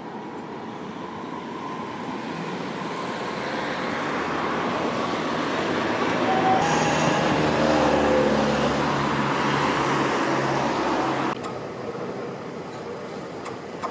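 A tram passing close by, its running noise and motor hum building to a peak and easing off, mixed with a car driving past on the road. About three-quarters of the way through the sound cuts off abruptly to quieter street ambience.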